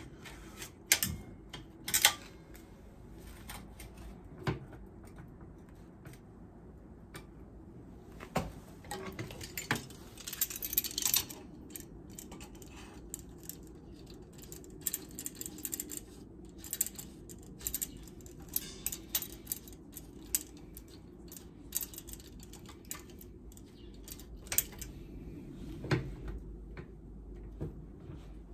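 Irregular metallic clicks and clinks of hand tools and metal parts being handled and set down, with a couple of louder clanks about one and two seconds in.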